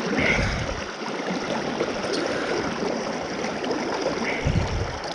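Fast river current rushing steadily around legs standing in the water, with a low bump about half a second in and another near the end.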